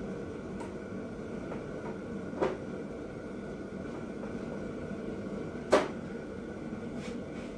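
Two sharp knocks about three seconds apart, the second the louder, from tools or a tool case being handled while rummaging for a die wrench, over a steady low hum.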